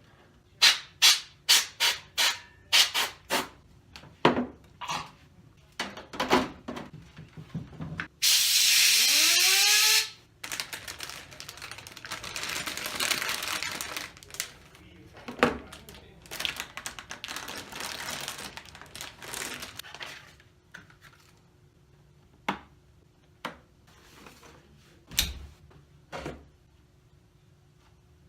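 Handling noises: a quick run of sharp clicks and knocks, a loud hissing rush with a rising tone about eight seconds in, then longer rustling or rubbing and a few scattered knocks.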